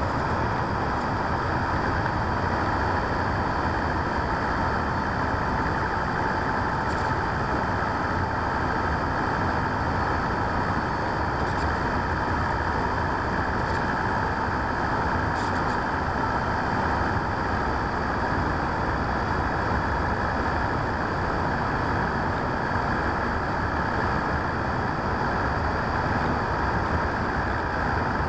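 Motor and propeller of a radio-controlled P-51D Mustang model in flight, with the rush of air, heard from inside the cockpit: a steady howling noise with a faint steady whine running through it.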